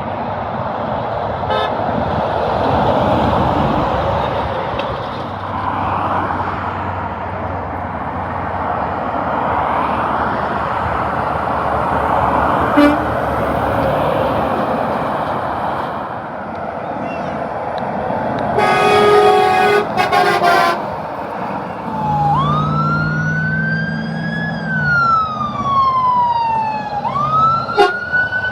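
Steady noise of passing road traffic. About two-thirds of the way through a truck horn sounds for about two seconds, then a siren wails: it rises, slowly falls, and rises again near the end.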